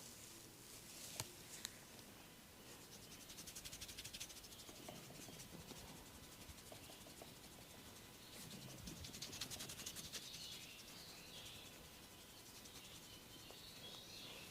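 Faint, quick scratching and rubbing of hands working the hair and scalp during a head massage, in two louder spells of rapid strokes.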